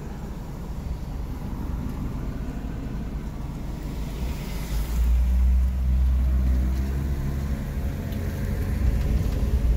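Car engine and road rumble heard from inside the cabin while driving slowly. About halfway through, the low engine drone gets louder and its pitch creeps up as the car speeds up.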